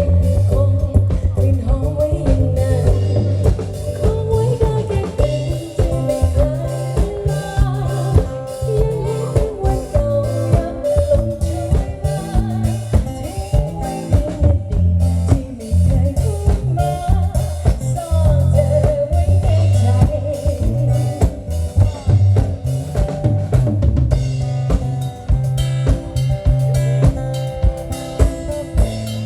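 Band music played live: drum kit keeping a steady beat over a repeating bass line, with a wavering melody line on top.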